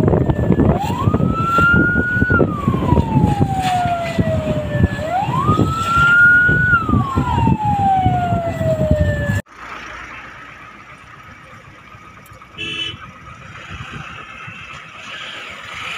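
Emergency vehicle siren wailing over a loud rushing noise, two slow cycles that each rise quickly and fall slowly. About nine seconds in the sound cuts abruptly to a much quieter steady hiss.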